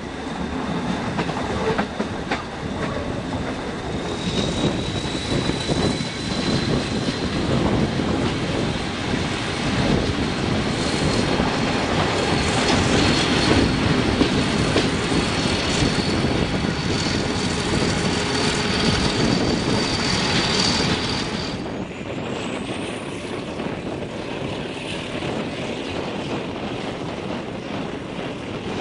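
ÖBB passenger train running at speed, heard from an open coach window: rolling noise with scattered knocks from the wheels on the track. A high steady squeal from the wheels runs through most of it, rising slightly, and stops about three quarters of the way in.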